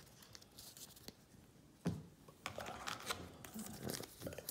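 Faint handling of a stack of trading cards: a couple of light clicks and a soft knock on a wooden table about two seconds in, then quiet scattered rustling.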